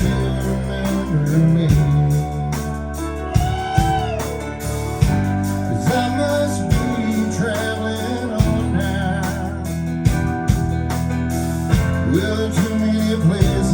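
Live band music: an instrumental passage with a lead guitar bending notes over steady bass and drums.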